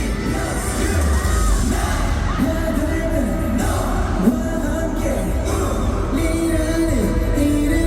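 K-pop dance track playing loud over a hall's PA system, with heavy bass and a voice singing sliding melodic lines. A single sharp hit stands out about four seconds in.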